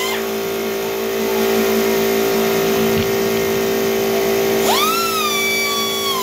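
Air-powered pencil die grinder running with a steady tone and a hiss of exhaust air as it works along aluminium engine cooling fins. A gliding guitar-like music note comes in about four and a half seconds in.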